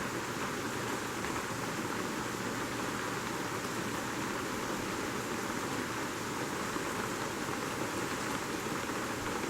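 Rain falling steadily on a cabin roof, an even, unbroken patter.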